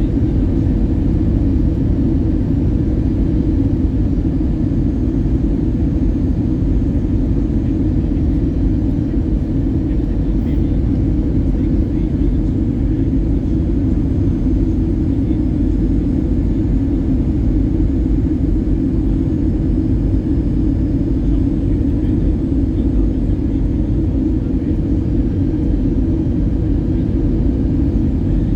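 Steady cabin noise inside an Airbus A320 in flight, a low, even rumble of engines and airflow with a faint steady hum above it.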